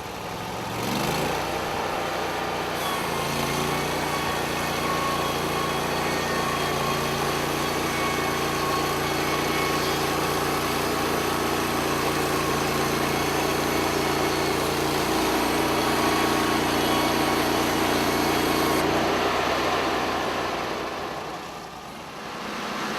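Portable band sawmill's small petrol engine revving up about a second in, then running steadily at speed. It drops away briefly near the end before picking up again.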